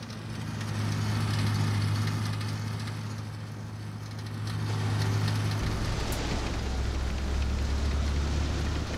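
Military trucks driving past, engines running with a steady low drone and road noise; the drone drops lower a little over halfway through.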